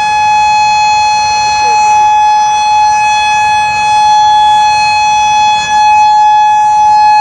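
Federal Signal Modulator 5020 electronic outdoor warning siren sounding a loud steady tone during its weekly test. It holds one pitch with overtones, with no rise or fall.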